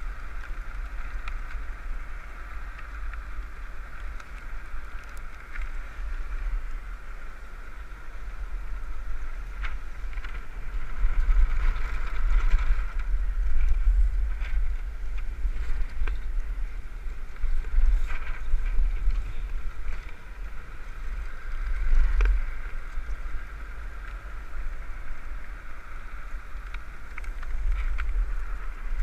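Land-sailing cart running fast over hard beach sand: heavy wind buffeting on the camera microphone, with a steady higher hum from the moving rig and scattered short clicks and rattles. It swells louder in places, around the middle and again later on.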